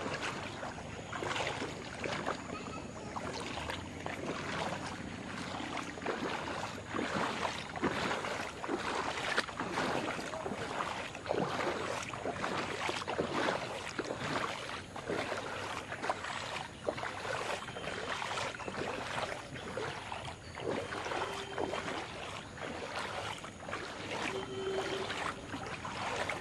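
Floodwater splashing and sloshing in irregular strokes.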